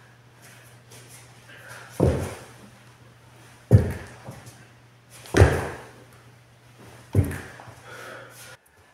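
Four heavy thuds of a person jumping and landing on the floor, about one and a half to two seconds apart, each with a short room echo. A steady low hum sounds underneath and cuts off near the end.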